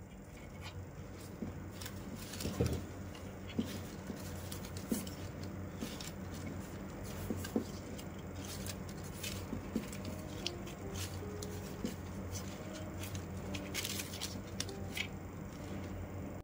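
Plastic rattan strands being woven by hand: irregular clicks, ticks and rustles as the stiff strands are pulled through and pressed into place, over a steady low hum.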